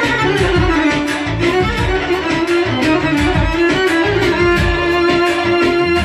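Violin playing a lively melody over a keyboard arranger's steady drum beat and bass, in Balkan Roma (tallava) style.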